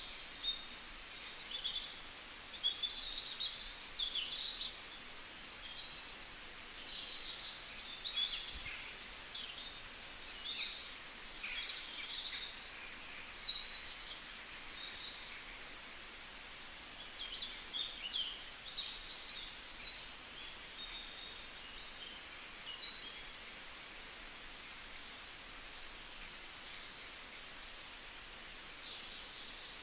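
Small birds chirping and twittering, many short high calls in clusters with brief lulls between them, over a faint steady hiss.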